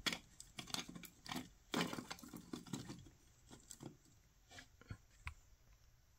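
Small plastic clicks and rattles as the HG Gundam Barbatos Lupus model kit is handled and fitted onto an action base's peg. The clicks come thick and fast for about three seconds, then a few separate clicks follow.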